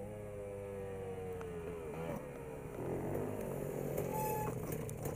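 Dirt bike engine running as it is ridden, its pitch sliding slowly down over the first couple of seconds, then rising and wavering again.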